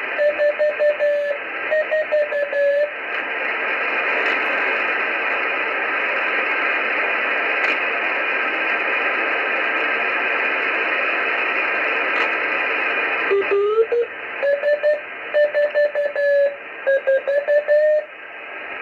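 Morse code beacon of the RS-44 (DOSAAF-85) satellite heard through a shortwave-style radio receiver: a keyed tone over steady receiver hiss. About three seconds in the tone drops out, leaving only hiss. It comes back near the end, sliding up in pitch before the keying resumes.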